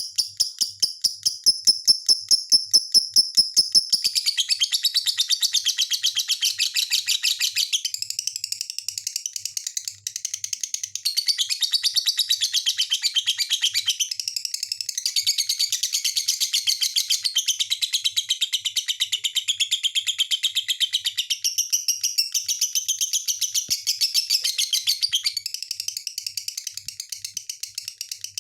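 Lovebird singing: a long, unbroken chatter of rapid, high-pitched chirps. It opens with a fast steady trill and then runs on as varied chattering.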